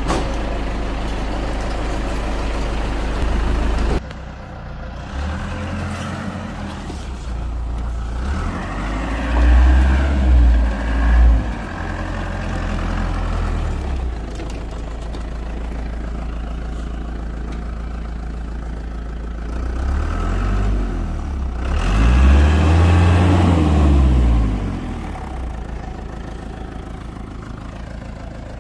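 Isuzu Elf crane truck's engine running steadily, with its revs rising and falling twice: once about ten seconds in, and again about twenty-two seconds in.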